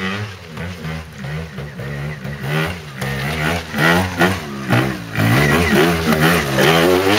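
Trials motorcycle engine revving in quick throttle blips, its pitch rising and falling as the bike climbs over rocks; it gets louder about five seconds in as the bike comes close.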